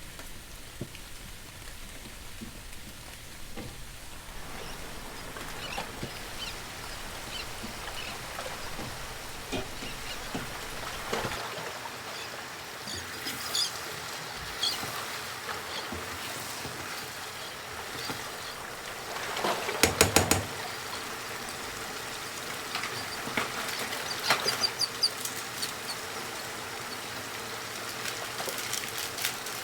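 Kitchen sounds while cooking: a steady hiss with scattered light clicks of utensils, and a quick run of four louder knocks about twenty seconds in.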